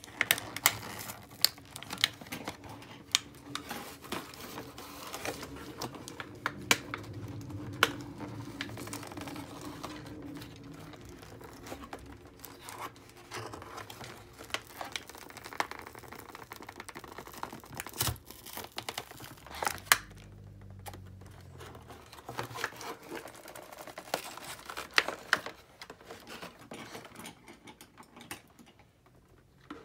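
Crinkling and rustling of cardboard and plastic packaging, with many sharp clicks and taps, as toy pieces are worked out of a tightly packed box. It gets quieter near the end.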